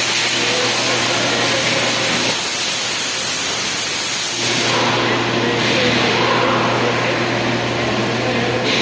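Air conditioner running: a steady, loud rush of air over a low hum. The hum drops out for about two seconds, a little over two seconds in.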